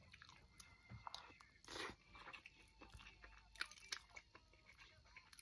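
A person chewing and biting food close to the microphone, faint, with irregular small crunches and wet mouth clicks and one brief louder crunchy rustle a little under two seconds in.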